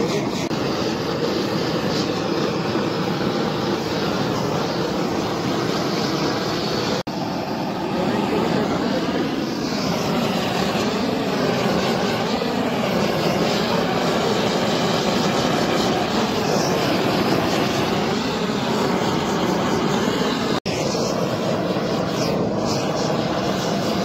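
LPG blowtorch flame burning steadily while it heats heat-shrink cable termination sleeves, a dense, even noise broken for an instant twice.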